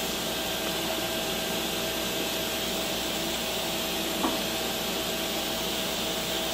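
Steady rushing air noise with a faint steady tone under it, and one short chirp about four seconds in.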